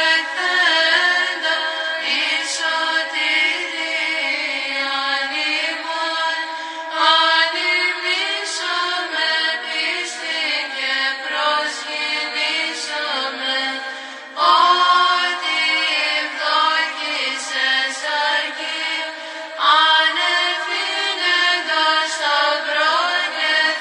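Background music of slow chanted singing, with long held notes that glide from pitch to pitch over a lower sustained vocal line.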